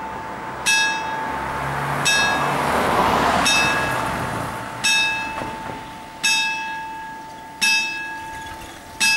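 Italian level-crossing warning bell striking at an even pace, about one ring every one and a half seconds, each stroke ringing on and fading: the signal of an approaching train. A car drives over the crossing about three seconds in.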